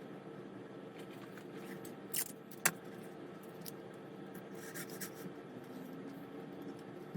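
Small clicks and scrapes from hand-fitting scale-model parts, with two sharp clicks about half a second apart a little over two seconds in and a few fainter ticks later, over a steady low hum.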